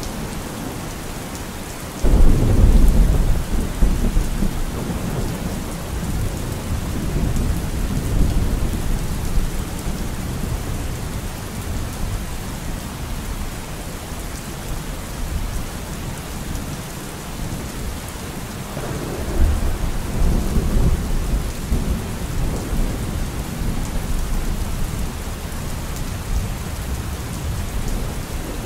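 Steady rain with deep rolls of thunder. One roll starts suddenly about two seconds in and is the loudest; another builds about two-thirds of the way through.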